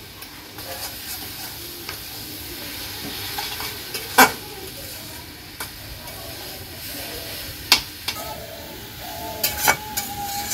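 Hinchi greens with garlic stir-frying in oil in a karahi, with a steady sizzle. A stirring utensil scrapes the pan and knocks sharply against it about four seconds in, again near eight seconds, and twice near the end.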